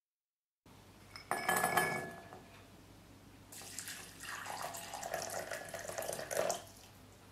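Hot water poured in a steady stream into a glass bowl of raisins, splashing and rising slightly in pitch as the bowl fills, stopping about six and a half seconds in. Earlier, about a second and a half in, a sharp clink of glass with a short ring.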